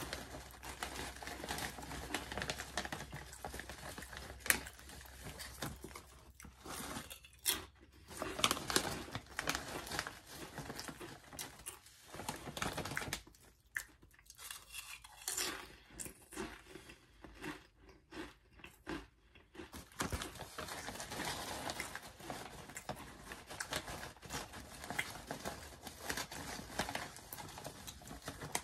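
Potato-chip bag crinkling as a hand reaches in, mixed with the crunching and chewing of wavy honey barbecue potato chips, in irregular crackles.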